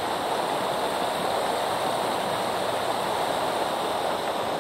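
Creek waterfall rushing steadily, an even hiss of falling water without breaks.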